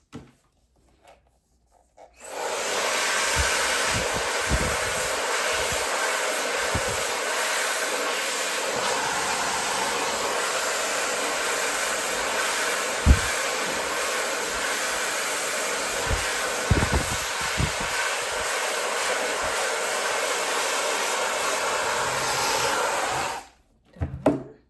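A 260,000 RPM high-speed hair dryer switches on about two seconds in and runs steadily, a rush of air with a thin high whine on top, then cuts off suddenly near the end. A few brief low thumps come through while it runs.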